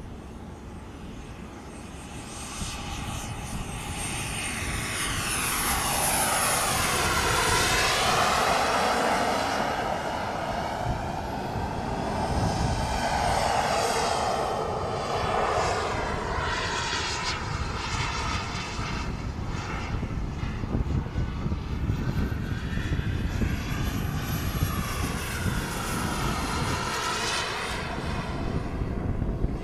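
Radio-controlled model airplane flying repeated close passes. Its engine whine swells and fades with each pass and slides in pitch as it goes by, loudest about a quarter of the way in.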